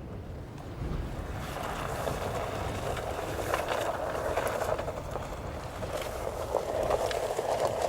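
Skoda Octavia Scout driving over an unpaved track: a steady rumble of tyres and engine with many small clicks of loose stones under the tyres.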